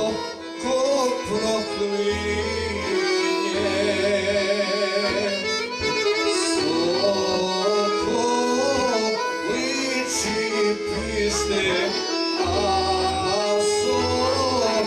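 A man singing a Bosnian folk song (sevdalinka) with vibrato, accompanied by accordions, with a low bass note sounding in repeated blocks.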